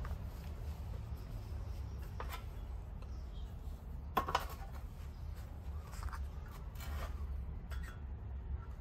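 Light metal clinks and knocks as a stripped racing brake caliper body is handled and shifted in a metal parts tray, the loudest a pair about four seconds in, over a low steady hum.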